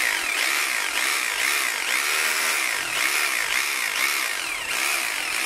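DCA AZC05-26B SDS rotary hammer running with no load in hammer mode: a steady, continuous hammering action over the motor noise. It sounds strong.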